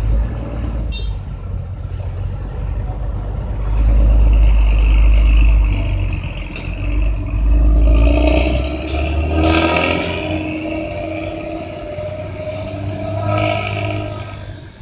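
Bus engine revving as the bus accelerates past, through a loud modified exhaust with a deep rumble and a rasping edge. The rumble is strongest from about four to nine seconds in, with the engine note rising near the end of that stretch and a brief sharp burst about ten seconds in.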